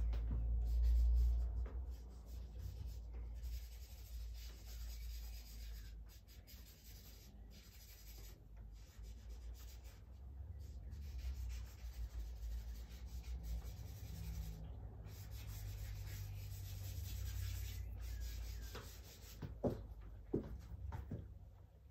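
Charcoal scratching and rubbing on drawing paper in strokes with brief pauses, over a low rumble. A few sharp taps come near the end.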